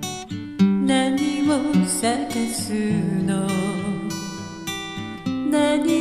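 Slow ballad accompaniment on acoustic guitar, plucked and strummed in a steady pulse, with a sustained melody line above it that wavers in pitch.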